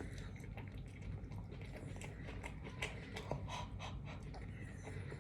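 Close-miked chewing of a sub sandwich: irregular small wet mouth clicks and smacks, with breathing, over a steady low hum.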